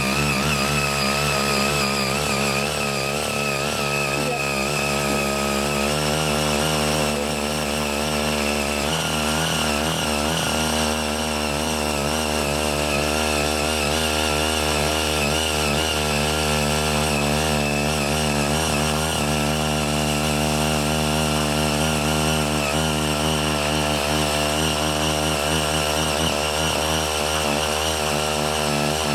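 CY80 mini cultivator's 5 hp engine running steadily under load as its six rotary tines churn hard red laterite soil, the engine note wavering slightly as the blades bite.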